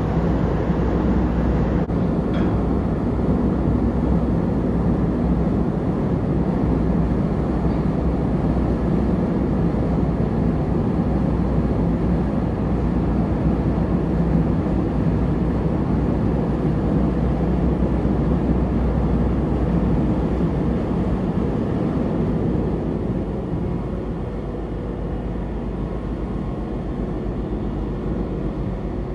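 Steady low rumble and hum of the berthed passenger ferry Tachibana Maru's engines and machinery, easing a little in level over the last few seconds.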